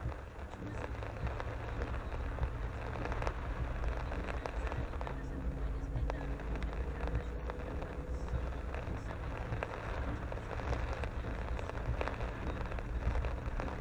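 Rain hitting a car's roof and windshield as a dense spray of small ticks, over the steady low rumble of the car rolling slowly on a wet road, heard from inside the car.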